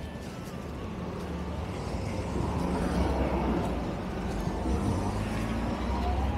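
Street traffic: the low hum of motor vehicle engines, growing steadily louder.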